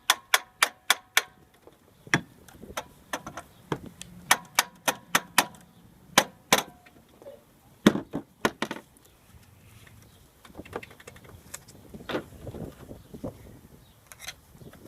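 Sharp metallic clicks and taps in quick runs of about four or five a second, with pauses between: metal parts and tools clinking as a replacement alternator is worked into its mounting and its bolts are started.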